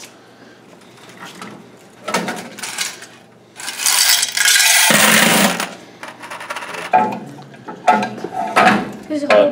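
Quarters emptied out of a laundromat dryer's metal coin box, a loud rush of coins lasting about two seconds midway. Clunks and rattles of the metal coin boxes come before and after.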